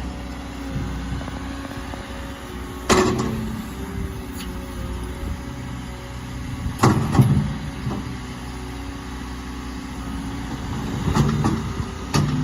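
Volvo ECR145EL excavator's diesel engine running steadily, with several sharp knocks: one about three seconds in, a pair about seven seconds in, and a cluster near the end.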